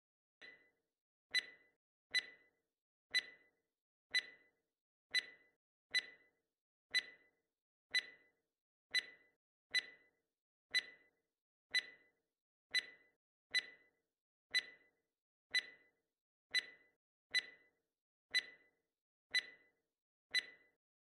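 Ticking sound effect of a quiz countdown timer: sharp ticks with a short ring, about one a second, the first one softer.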